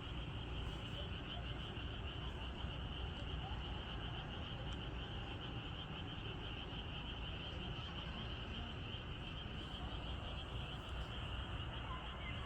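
Night chorus of calling frogs and insects: a steady, high, slightly pulsing trill, over a low rumbling background.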